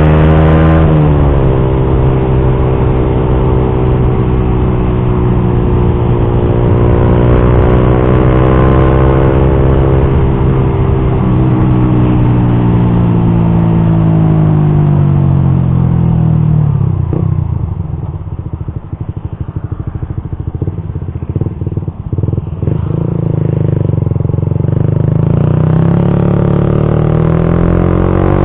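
Suzuki GSX-R150's single-cylinder engine through an R9 Misano racing exhaust while riding, the revs rising and falling through the gears. Past the middle it drops back for several seconds with a scatter of sharp pops, then picks up again.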